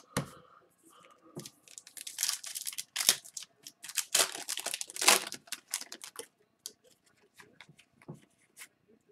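Hockey card pack wrapper being torn open and crinkled, in two noisy rips a couple of seconds apart, with small clicks of cards being handled. There is a short knock right at the start.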